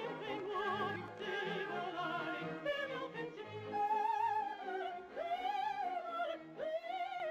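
Lyric soprano singing an opera aria over orchestral accompaniment, holding long notes with a wide vibrato.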